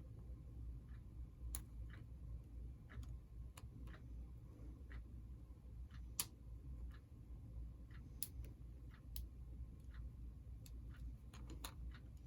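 Faint, irregular small clicks and ticks of model locomotive parts being handled and pressed together, over a low steady hum.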